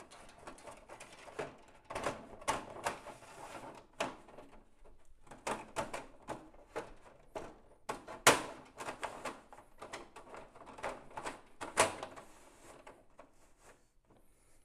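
Thin perforated metal strip being fed around a SkiErg's plastic flywheel cover and worked under its loose fasteners: irregular scraping, rattling and clicking of metal against plastic, with two sharper knocks past the middle.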